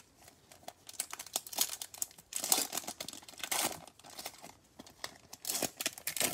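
Wrapper of a Topps Chrome baseball card pack being torn open and crinkled by hand: a run of crackling rips and rustles starting about a second in, loudest in the middle and again near the end.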